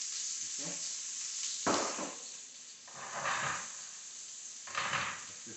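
Chicken, peppers and onions sizzling in hot oil in a frying pan, a steady hiss that swells louder three times.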